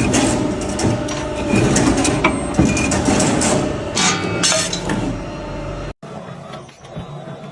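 Automatic steel-strip bending and cutting machine working, with dense metallic clinks and clanks of steel strips over a steady hum. It cuts off suddenly about six seconds in, and a vegetable strip-cutting machine follows, running much more quietly.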